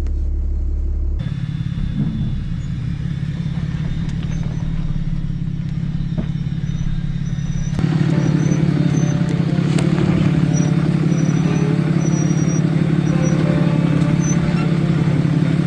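Ram 2500's Cummins inline-six turbo-diesel running steadily with a low drone as the truck tows the trailer. The sound changes abruptly about a second in and gets louder about eight seconds in.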